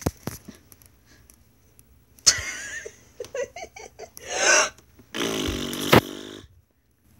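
A series of mouth-made fart noises (blown raspberries), the last one the longest at about a second.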